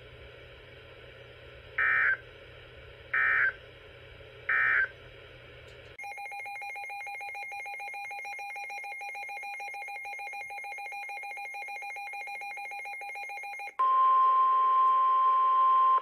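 Emergency Alert System tones from a weather radio: three short digital data bursts, the end-of-message code of the previous warning, then a steady electronic alert tone for about eight seconds. Near the end comes a louder single steady tone, the NOAA Weather Radio warning alarm that leads into the next tornado warning.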